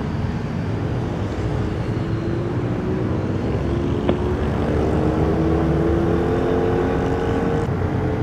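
Vespa Primavera 150 scooter under way, its engine tone climbing slowly in pitch as it picks up speed, over a steady low rumble of riding noise.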